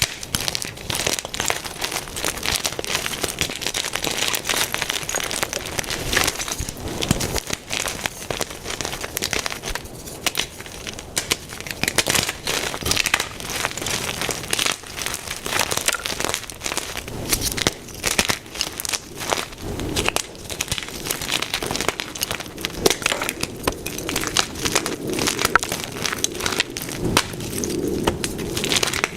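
Blocks of white gym chalk being crushed and crumbled by hand, a continuous dense crackling and crunching.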